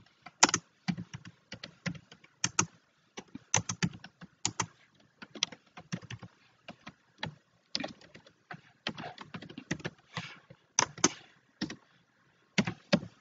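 Typing on a computer keyboard: irregular runs of key clicks with brief pauses between them.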